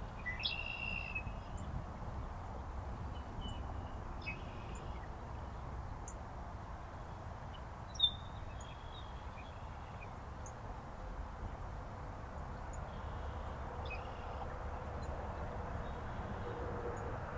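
Short bird calls repeat every few seconds over a steady low background rush, with one sharp click about eight seconds in.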